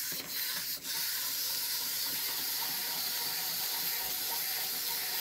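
Several mini plastic wind-up toys walking at once, their clockwork motors giving a steady, high whirring hiss. Two light clicks in the first second as they are set down.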